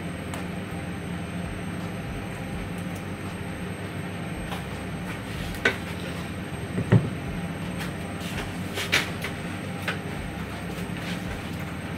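A steady low hum, with a few light clicks and knocks of kitchenware; the loudest is a dull knock about seven seconds in.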